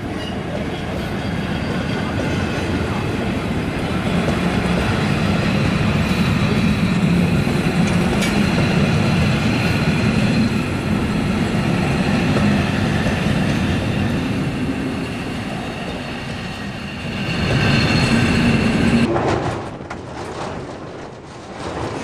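A passenger train running, heard from inside a carriage: steady running noise with a few faint high tones and a louder swell near the end. About three seconds before the end it changes to a different, quieter recording.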